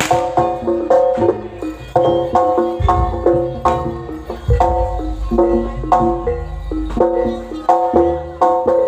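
Live Javanese gamelan accompaniment for a jaranan dance: a fast, even run of ringing struck metal notes over deep low drum or gong beats.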